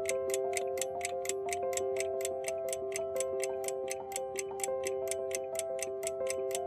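Countdown clock ticking sound effect, about four sharp ticks a second, over a simple background tune of held notes.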